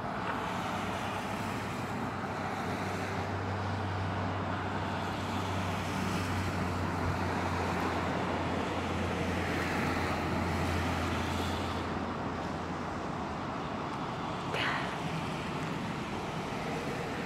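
Steady outdoor background noise of road traffic, with a low engine hum that fades out about two-thirds of the way through. A single brief sharp sound comes about three-quarters of the way in.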